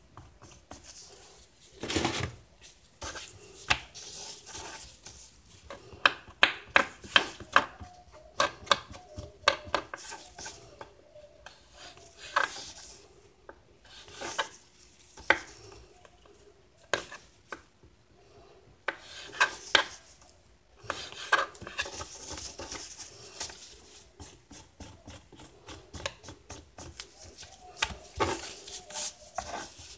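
A kitchen knife cutting and scraping nopal cactus pads on a cutting board: irregular clusters of sharp knocks with scraping in between.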